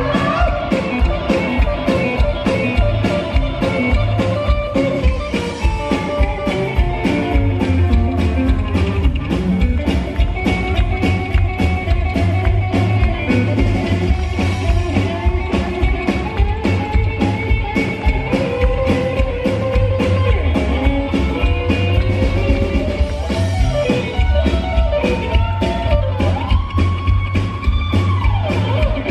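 Live rockabilly band: a hollow-body electric guitar plays a lead line with bent notes over a steady drum beat and a pulsing bass line. Near the end a high note is bent and held.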